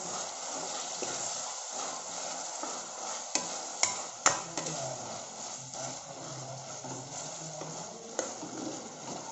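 Chopped tomatoes sizzling in hot oil in a kadai as they cook down in a spiced onion base, stirred with a steel spoon. A few sharp clicks of the spoon against the pan come three to four seconds in and once more near the end.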